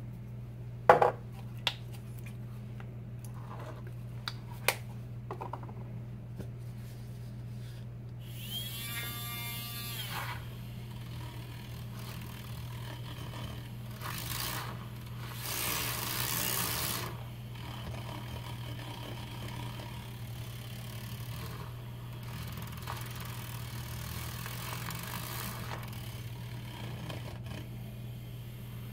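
A handheld battery milk frother whirring in a cup of coffee, blending in collagen powder. It runs loudest for a few seconds in the middle, then keeps going at a lower level. Before it come a few sharp clicks and taps near the start and a short pour of liquid about nine seconds in.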